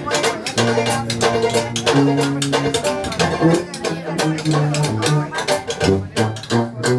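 Live Dixieland jazz band playing, with a bass line moving note to note under a steady beat.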